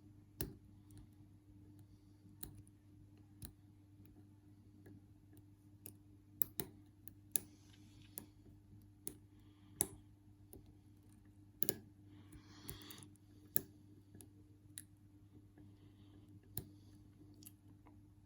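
Lock pick working inside a Union padlock under very light tension: sharp, irregularly spaced metal clicks as the pick probes the pins, with a couple of brief soft scrapes.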